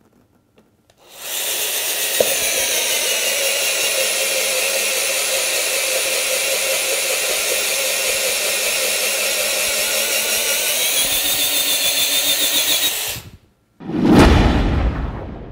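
Metabo SB 18 LTX-3 BL Q I cordless drill's brushless motor and gearbox running steadily under load as an auger bit bores into a wooden railway sleeper, starting about a second in and stopping after about twelve seconds. A loud burst of music starts near the end.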